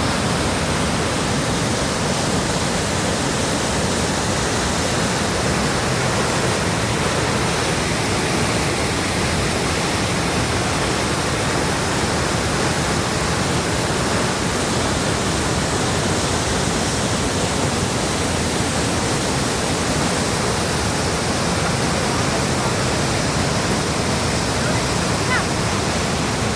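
Mountain stream rushing, a steady, even wash of water noise that does not change.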